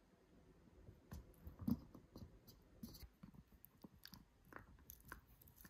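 Dog chewing and gnawing, heard as faint, irregular little clicks and crunches.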